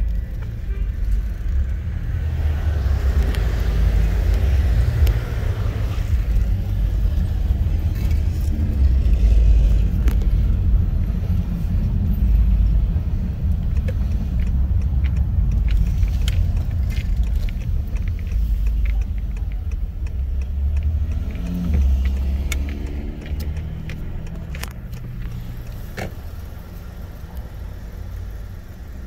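A car running, a heavy low rumble that swells and eases, with scattered clicks and knocks over it.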